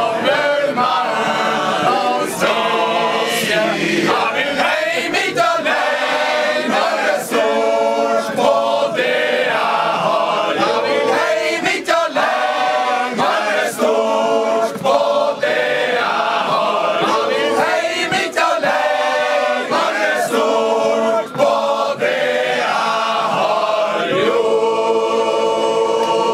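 A male choir singing a capella, many men's voices together in sustained chords that change every second or so, ending on a long held chord.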